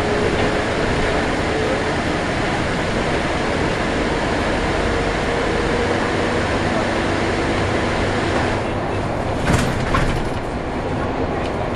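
Scania-chassis Alexander Dennis Enviro 300 single-deck bus heard from inside the saloon while under way: steady engine and road noise with a faint wavering whine. A sharp knock or rattle comes about nine and a half seconds in, and the noise eases slightly shortly before it.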